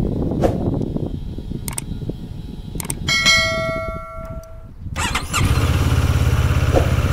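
CF Moto 650MT parallel-twin motorcycle engine being started: a few clicks, then a steady whine for about a second and a half. The engine catches about five seconds in and settles into an even idle.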